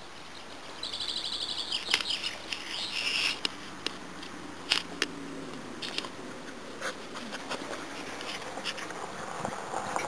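A bird's rapid, high chirping trill for about two seconds, starting about a second in, followed by a few sharp clicks.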